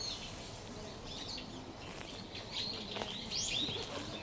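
Many small birds chirping and twittering in quick, overlapping calls, busiest in the second half, over a steady low background hum of the surroundings.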